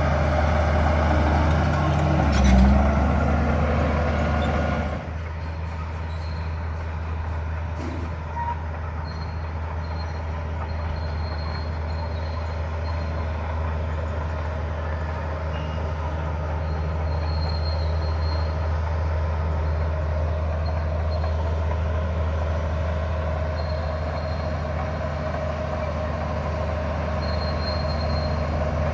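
Bulldozer's diesel engine running steadily, louder and noisier for the first five seconds, then dropping suddenly to a lower, steadier level about five seconds in.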